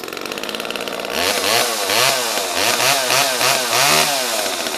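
Homelite XL two-stroke chainsaw engine running, then revved up and down about six times in quick throttle blips. The owner thinks its piston rings are broken.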